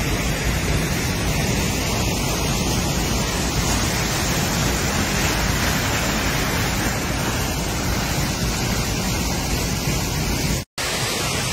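Waterfall pouring down a granite rock face: a steady rush of falling water and spray, which breaks off for an instant near the end.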